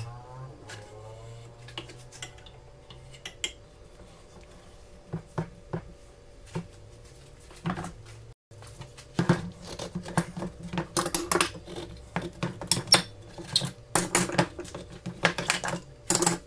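Steel bar clamps being handled around a wooden plane body, giving metal clinks and knocks. They are scattered at first, then after a brief break about eight seconds in come a dense run of clattering as the clamps are loosened and taken off. A faint steady hum sits underneath.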